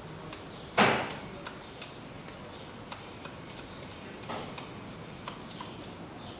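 Automatic transmission dipstick being screwed back into its tube by hand. There is one loud metallic clink about a second in, then a scattering of light, irregular clicks.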